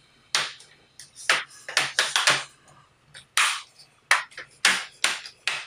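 Plastic front bezel of a Dell Inspiron 7559 laptop screen being pressed back onto the lid, its clips snapping into place in a run of about a dozen sharp, irregular clicks.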